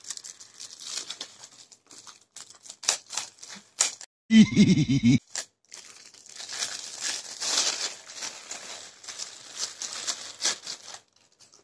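White wrapping crinkling and crackling irregularly as it is crumpled and pulled off a small part by hand, with a short pitched sound about four seconds in.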